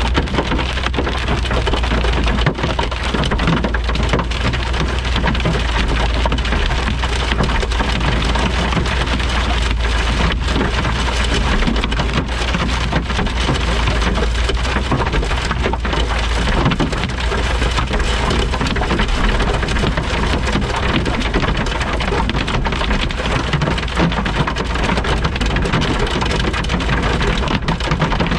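Heavy thunderstorm rain pelting down steadily as a dense patter of drop impacts, over a constant deep rumble.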